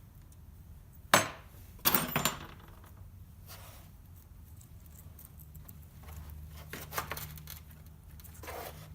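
Metal brake hardware clips being handled and snapped into a caliper bracket: a sharp metallic click about a second in, a short run of clinking just after, then a few lighter clicks.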